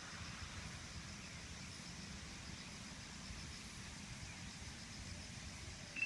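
Steady low rushing of the flood-swollen Kokai River, with faint, fast, even insect chirping above it.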